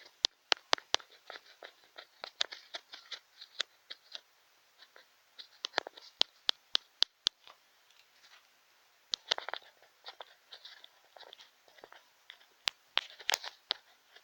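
Ear-cleaning tools scraping and clicking in an ear: irregular crackly scratches and sharp clicks, with short pauses between strokes.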